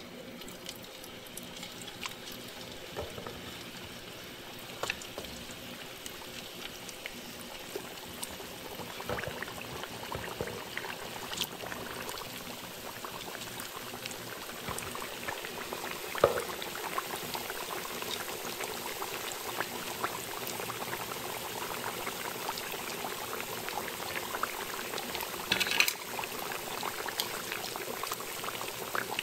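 Taro sticks deep-frying in hot oil in a wok: a steady sizzle and bubbling that slowly grows louder as more sticks go into the oil. A few sharp clicks and taps stand out now and then, the loudest about sixteen seconds in and a cluster near the end.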